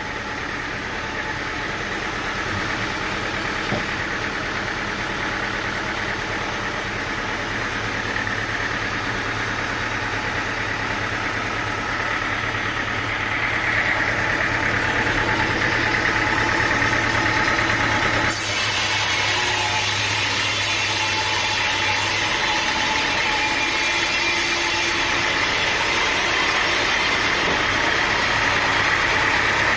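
Engine-driven sawmill running steadily. It grows louder about halfway through, and a high hiss joins it about two-thirds of the way in.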